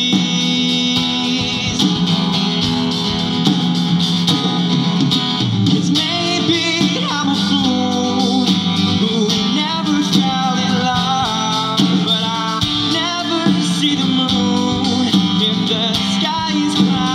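Live music: a man singing while playing an acoustic guitar.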